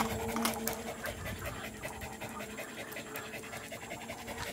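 An Indonesian village dog panting close by in quick, even breaths, with a faint steady hum underneath.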